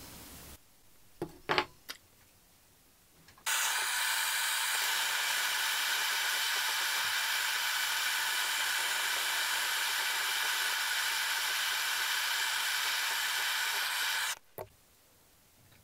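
Soldering torch flame hissing steadily for about ten seconds as it heats the silver wire and spiral to flow the solder, then cutting off suddenly. Two light clicks come a second or two before the flame starts.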